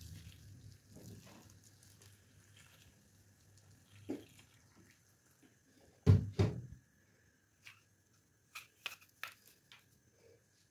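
Hot water poured over cowpea leaves in an aluminium pot, a brief soft splashing. About six seconds in there are two heavy thumps, the loudest sounds here, and near the end a few light clicks.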